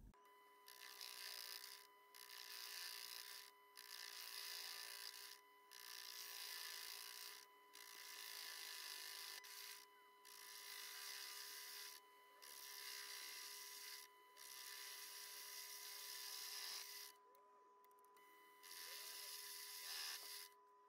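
Proxxon PD250/E mini lathe running with a faint steady whine while a drill in the tailstock chuck cuts into the end of a rebar workpiece. The cutting gives a faint scraping hiss in about ten even strokes of a second and a half or so, with short breaks between.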